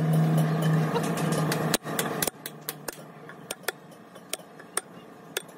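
An engine runs steadily, then stops abruptly about two seconds in. Scattered light metallic clicks from a steel rod on the truck wheel hub remain.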